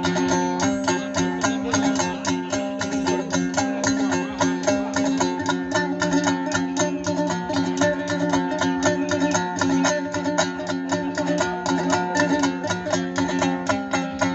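Uzbek do'mbira, a long-necked two-string lute, played solo with rapid, even strumming over a steady low drone.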